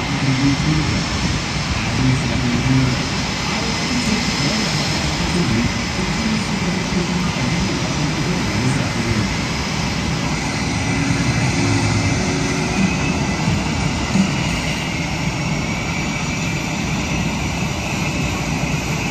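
Blue Angels F/A-18 Super Hornet jet engines running on the ground with a steady high turbine whine over a rumble; the whine shifts in pitch about halfway through.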